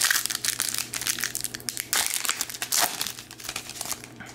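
Plastic hockey card pack wrapper being torn open and crumpled in the hands: a dense crinkling crackle that thins out near the end.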